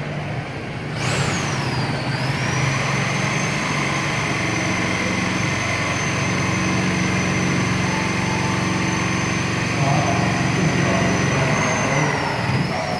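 Escalator running: a steady high-pitched squeal over a low machine hum. The squeal dips in pitch just after it starts, about a second in, and wavers just before it stops near the end.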